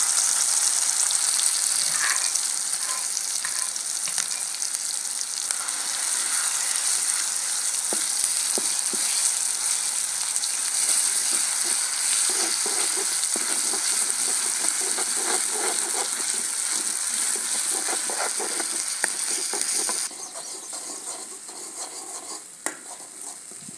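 Ground spice masala sizzling in hot oil in an iron kadhai as it is fried, stirred with a steel ladle that scrapes and clicks against the pan. The sizzle drops sharply about twenty seconds in.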